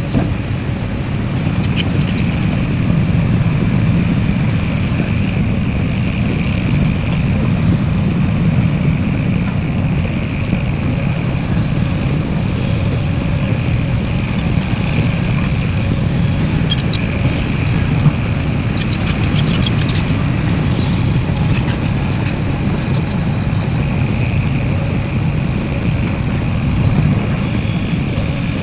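Heavy mining machinery's diesel engine running steadily under load, with a steady higher whine above the low engine note.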